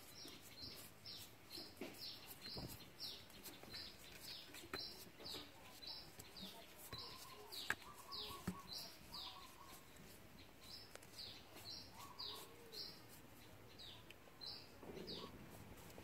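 Faint bird chirping: a rapid string of short, high, falling chirps, about two or three a second, with a brief pause in the middle. It stops near the end.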